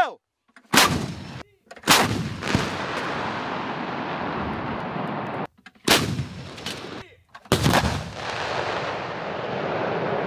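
Towed artillery guns firing: four heavy shots, the first two close together about a second and two seconds in, the others about six and seven and a half seconds in. Each shot is followed by a long rolling echo that carries on until the next.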